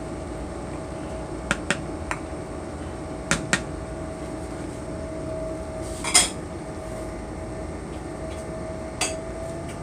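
Wooden spoon knocking and scraping against a bowl and a large metal stockpot as tomato paste is spooned in. There are several sharp clacks, the loudest about six seconds in, over a steady background hum.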